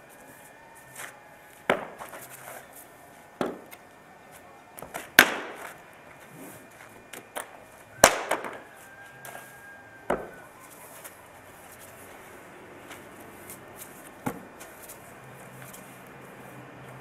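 Sharp cracks and slaps from a martial artist working through a spear form, about six loud ones spread out, the two loudest about five and eight seconds in, with softer rustles and steps between and fewer strikes near the end.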